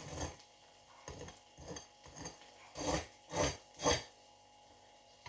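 A metal knife scraping and prying at toasted sandwiches stuck in a sandwich toaster: about seven short rasping strokes, the last three loudest.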